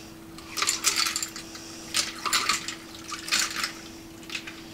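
Iced tea poured from a large glass mason jar over ice into a tall glass: liquid splashing with ice clinking against the glass, in several bursts as the jar is tipped.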